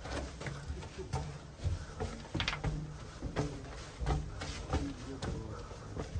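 Footsteps on a gritty, dusty rock floor at a walking pace, each step a short scuffing knock.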